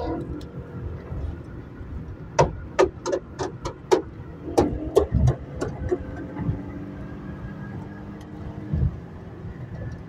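Infiniti Q50 3.7's V6 with a tuned exhaust: a quick, irregular run of about a dozen sharp exhaust pops and crackles, starting a couple of seconds in and lasting about three and a half seconds, over a steady drone of engine and road noise.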